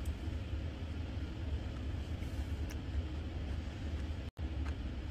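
Steady low rumble with an even background hiss, broken by a brief sudden dropout about four seconds in, with a few faint clicks.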